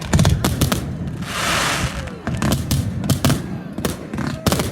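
Fireworks display: aerial shells bursting in a rapid series of bangs, with a second of hissing crackle about a second in.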